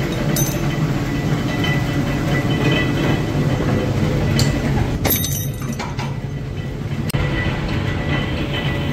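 Bolt-threading machine running with a steady low rumble and rattle, with a few sharp metallic clicks about five seconds in.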